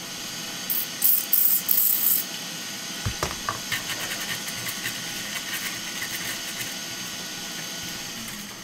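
Steady hiss of air from the Quick 861DW hot air station, broken by a few short, sharper hissing bursts in the first couple of seconds and a single knock about three seconds in; the hiss fades away near the end.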